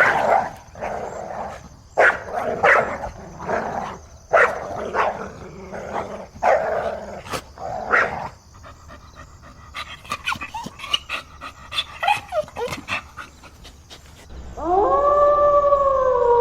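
Dog barking repeatedly, about a dozen loud barks over the first half, then a few short high yelps, and near the end a long drawn-out howl that rises and then holds steady.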